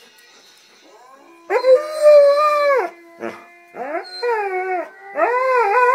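Alaskan Malamute howling along to music. A long held howl starts about a second and a half in, then a short yelp and a run of shorter howls that waver up and down in pitch.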